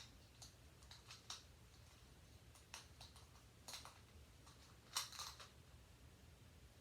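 Plastic Rubik's-type puzzle cube being turned by hand: scattered short clicks and clacks as layers snap round, with a quick cluster of clatters about five seconds in.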